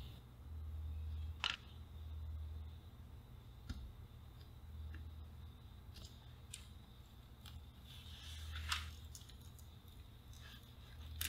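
Soldering iron and copper desoldering braid working solder joints off a transistor radio's circuit board to free a capacitor, giving a few faint sharp clicks and ticks. Fingers then work the capacitor loose near the end. A low hum comes and goes underneath.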